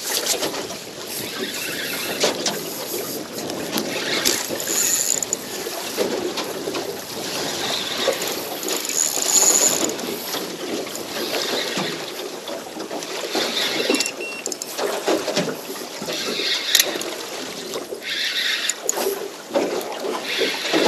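Choppy water slapping against a small boat's hull, with wind on the microphone, while a fish is fought on a spinning rod. Two short high-pitched zings about 5 and 9 seconds in, typical of the spinning reel's drag giving line.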